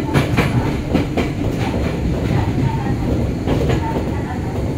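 Joshin Line electric train running slowly, its wheels rumbling on the track. Sharp clacks sound a few times as the wheels cross rail joints or points: a cluster in the first second or so and another pair around three and a half seconds in.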